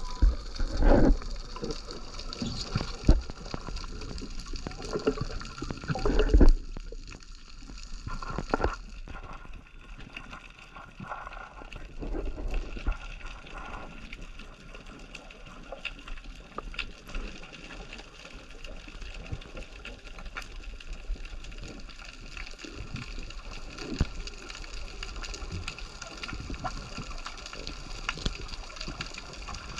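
Underwater sound picked up by a camera's microphone beneath the surface: water rushing and gurgling, with scattered sharp clicks throughout and several louder bumps and knocks in the first seven seconds.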